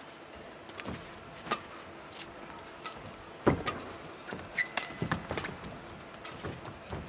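Badminton doubles rally: racquets striking the shuttlecock in a run of sharp cracks, the hardest about halfway through, then several quicker exchanges, with shoes squeaking on the court floor.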